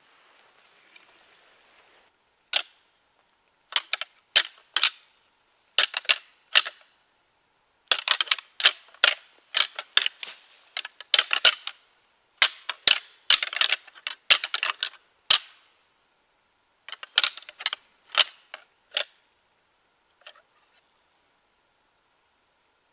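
A pair of deer antlers being rattled and clashed together, sharp clacks and clattering in bursts, busiest in the middle and stopping about twenty seconds in. This is a rattling call that imitates two bucks sparring, used to draw in a buck.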